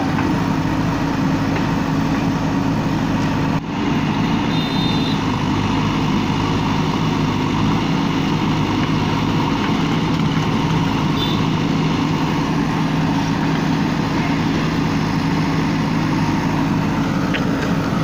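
JCB 3DX backhoe loader's diesel engine running steadily while the backhoe arm digs.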